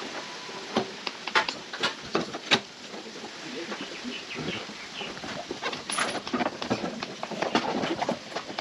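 Irregular sharp clicks and knocks, several in the first few seconds and a denser run near the end, over faint background voices.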